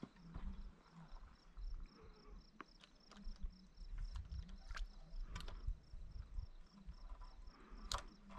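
Faint outdoor ambience: a steady high-pitched ticking, about three a second, with scattered sharp clicks and a low rumble of wind or handling on the microphone.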